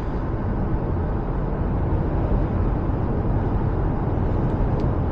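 Steady road and tyre noise inside the cabin of a 2024 Subaru Forester on the move, a low, even rumble with the engine in the background.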